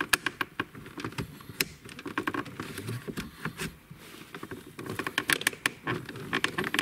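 Plastic dashboard trim in a car's centre console being worked loose by hand: a run of irregular clicks, knocks and rattles, busiest at the start and again from about five seconds in.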